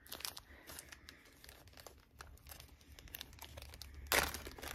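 Small zip-top plastic bag of wax melts crinkling and crackling as it is handled and opened, with one louder rasp about four seconds in.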